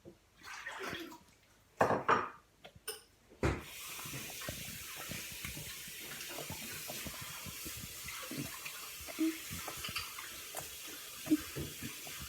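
Jelly cube slime, made with the water-swollen gel from inside a nappy, squished and stretched by hand: a few separate wet squelches, then a run of many small wet clicks and pops over a steady hiss.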